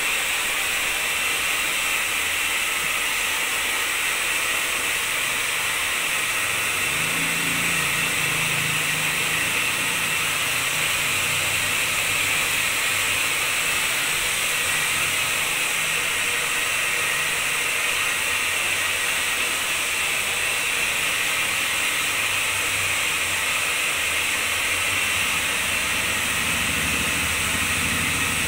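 Handheld hair dryer running steadily on wet hair, a constant blowing hiss.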